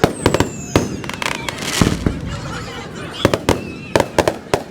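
Fireworks display: a rapid string of sharp bangs and cracks, about a dozen reports with short gaps between them, sped up to double speed.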